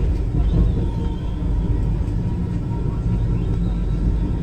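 A moving vehicle's running noise: a steady low rumble.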